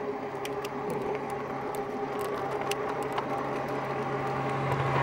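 Electric bike motor whirring steadily under way, with light scattered ticking. A vehicle approaches, growing louder toward the end.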